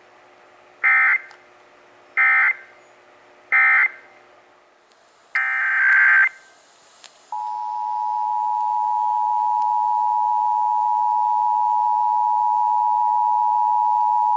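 Emergency Alert System data tones: three short, screeching end-of-message bursts, then a longer burst of the same data tones. About seven seconds in, the steady two-tone EAS attention signal starts and holds.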